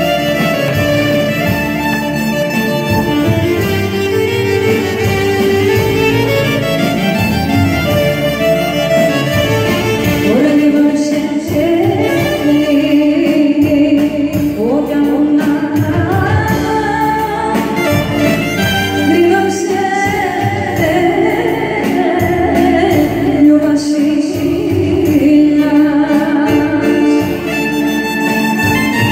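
Live Greek dance music played on an amplified keyboard, with a woman singing into a microphone from about a third of the way in, her voice sliding between notes.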